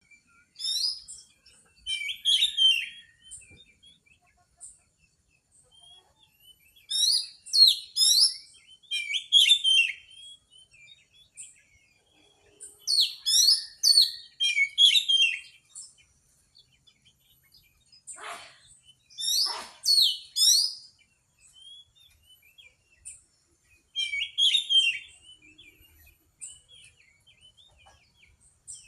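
Oriental magpie-robin (kacer) singing in repeated bursts of rapid, high, sliding and chattering phrases, each a second or two long, with short pauses between. Two harsher, lower-reaching sounds come about two-thirds of the way through.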